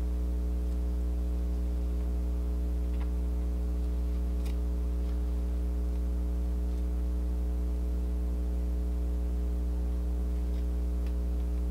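Steady electrical mains hum, with a few faint clicks scattered through it.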